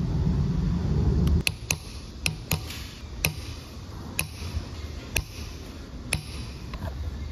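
A low rumble that cuts off about a second and a half in, then light metallic taps from a steel tool on a machined aluminium disc: about eight sharp clicks, each with a short ring, at uneven gaps of half a second to a second.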